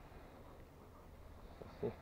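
Quiet outdoor background with a steady low rumble, and a brief voice near the end.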